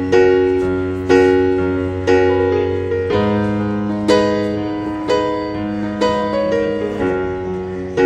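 Slow background piano music: chords struck about once a second, each ringing and fading before the next.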